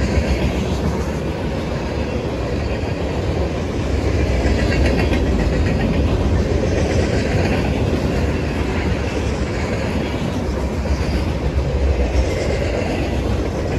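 Mixed freight train cars rolling past: a steady rumble of steel wheels on the rails that holds at one level throughout.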